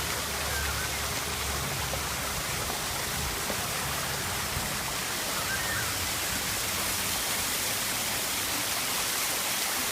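Steady rushing of falling water from a mini golf course's artificial waterfall.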